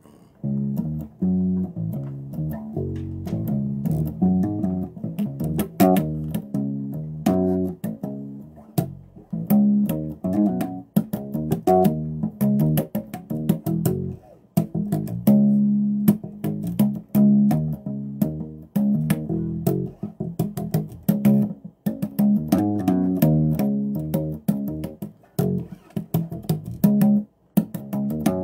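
Bass guitar played solo: a busy run of plucked notes in phrases with brief pauses, with sharp string clicks between notes.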